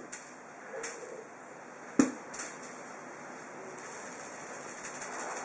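Quiet room tone broken by a single sharp knock about two seconds in, with a fainter one just under a second in.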